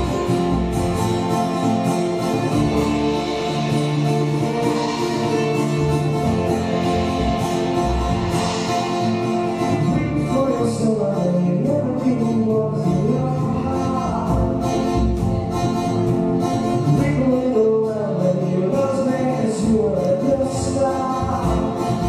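Live acoustic folk-rock band playing: strummed acoustic guitar, violin, upright double bass, drum kit and keyboard. From about halfway through, a man sings over the band.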